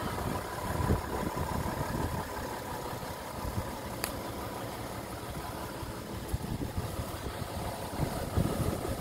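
An engine idling steadily, with irregular gusts of wind buffeting the microphone and a single short click about four seconds in.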